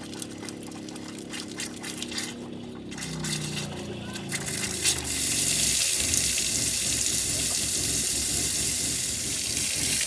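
RV galley faucet running into a stainless sink, to purge air from the freshly filled water lines. At first a thin stream runs with the RV water pump humming underneath. About five seconds in, the flow opens up into a loud, steady rush.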